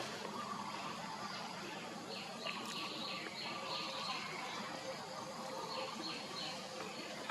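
Outdoor ambience of many short, high, downward-sliding chirping calls repeating every half second or so, over a steady high insect-like hum.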